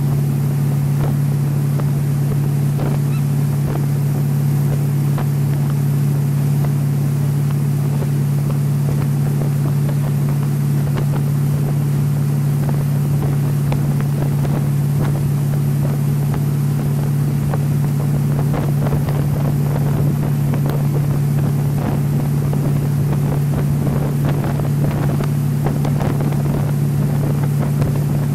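Jet ski engine running at a steady, unchanging speed, with wind buffeting the microphone and the hiss of water over it.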